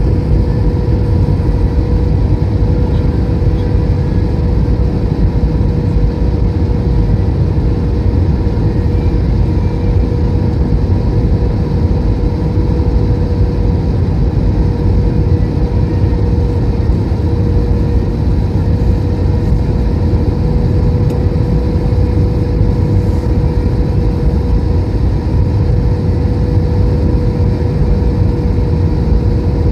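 Airbus A321 cabin noise in flight: a steady roar of jet engines and airflow, with a constant hum running through it.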